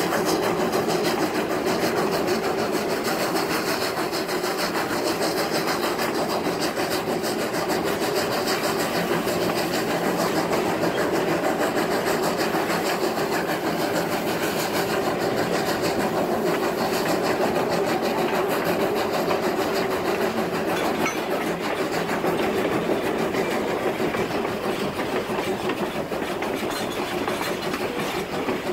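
Polson Logging Co. No. 70, a 2-8-2 logging steam locomotive, working under way, its exhaust chuffing from the stack in a quick, steady rhythm, heard up close from aboard the engine.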